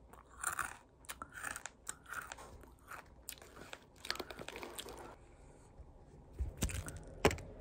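Takis rolled tortilla chips being bitten and chewed: a string of crisp, irregular crunches, loudest near the end.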